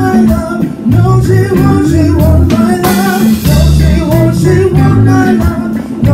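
Live band playing: a male vocalist sings into a microphone over an electric bass line, with drums keeping time.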